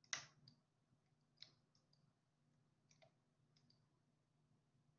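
Near silence broken by a few faint, scattered clicks, the loudest right at the start, from handwriting input on a computer as numbers are written onto a slide.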